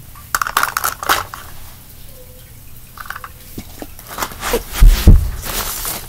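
Rustling and small clicks of someone moving and handling things right next to the phone on the floor, with two heavy thumps near the microphone about five seconds in.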